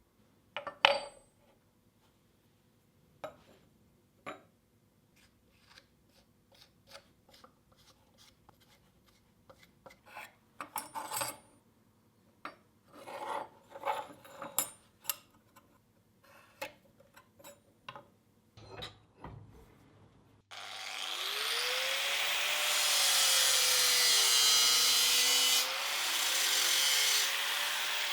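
Scattered scrapes and taps of hand work on metal. About two-thirds of the way in, an electric power tool starts grinding, much louder than the hand work, its motor pitch dipping and recovering under load.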